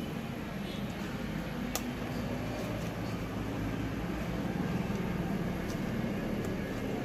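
A few sharp clicks of a screwdriver prying at the plastic casing of a CFL bulb to split it open, over a steady low background rumble.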